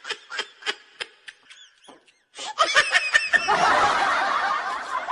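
Laughter in quick repeated bursts, about four a second, trailing off about two seconds in. After a short silence it starts again and gives way to a dense, continuous din near the end.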